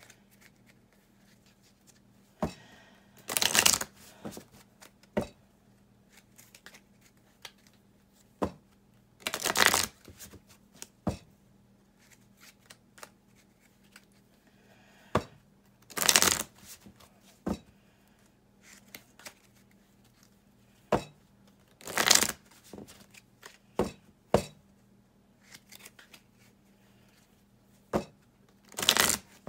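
A deck of playing cards being shuffled: five short bursts of shuffling about six seconds apart, with light taps and clicks of the cards between them.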